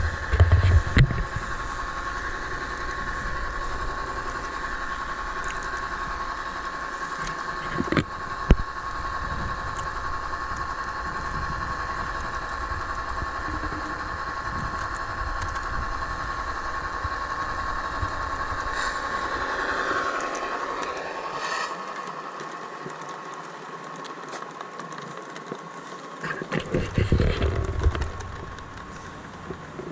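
Model Class 59 diesel locomotive's onboard sound system playing a diesel engine running sound through its small speaker as the model runs along the track: a steady hum with a constant whine over it. A few low thumps near the start and near the end, and a sharp click about eight seconds in.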